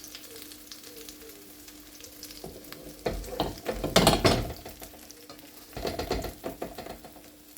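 Omelette frying gently in oil in a pan over low heat, a quiet steady sizzle. Twice, at about three to four seconds in and again around six seconds, there is louder scraping and clatter of a utensil against the pan.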